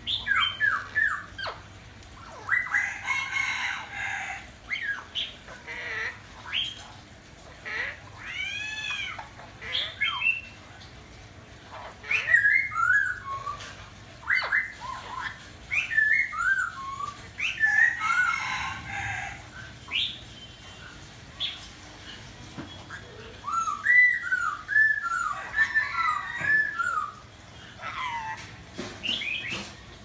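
Cuban amazon parrot calling in bouts of squawks, short chirps and arching whistles that rise and fall in pitch, with brief pauses between.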